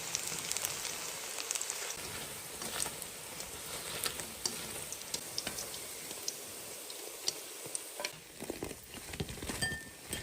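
Savory batter pancakes frying in a pan of melted mutton fat, with a steady sizzle and fine crackling. The sizzle thins out in the last couple of seconds, and there are a few clicks near the end.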